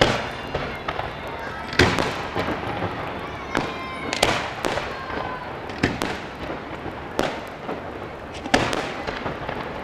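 Aerial firework shells bursting: about seven sharp bangs at uneven gaps of one to two seconds, each trailing off, with smaller cracks between them.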